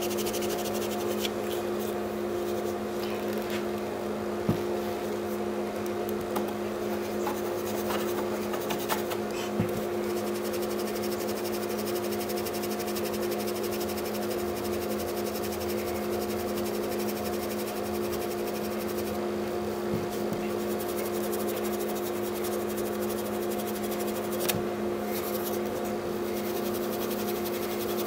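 Steady machine hum holding a few constant tones, with a few faint clicks and scratches from fingers picking loose paint off a rifle stock.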